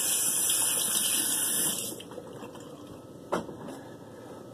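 Bathroom sink tap running as a face is washed, then shut off about two seconds in. A single short knock follows about a second later.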